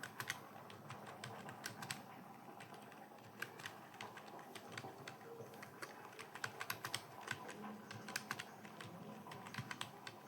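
Computer keyboard typing: irregular runs of key clicks, bunched in quick bursts with short pauses, over a faint steady hum.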